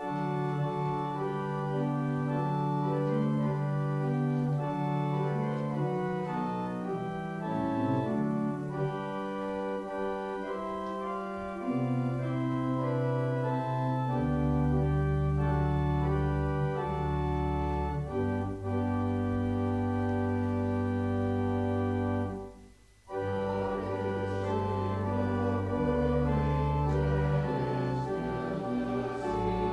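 Church organ playing sustained chords, with deep pedal bass notes coming in about halfway through and a brief break between phrases about two-thirds of the way in.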